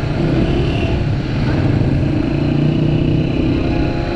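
Single-cylinder engine of a BMW G310GS motorcycle running steadily under way.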